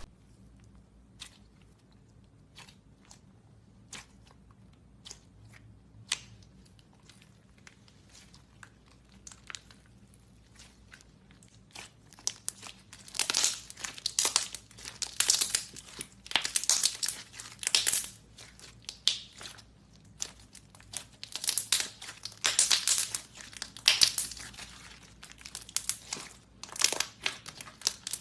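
Slime being squished and worked, giving scattered small crackles and pops at first. From about twelve seconds in come repeated bursts of crinkly crackling, roughly one every second or two.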